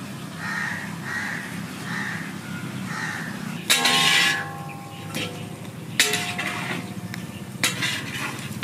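A crow cawing about five times in a row. Then a metal ladle scrapes and strikes a large iron kadai of frying chicken, with ringing clangs about four and six seconds in.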